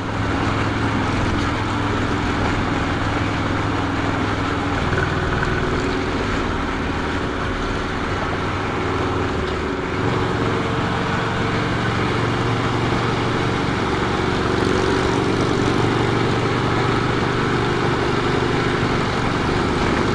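Harley-Davidson V-twin engine running steadily while the motorcycle cruises, with wind rushing over the microphone. The engine note shifts twice, about a quarter and halfway through.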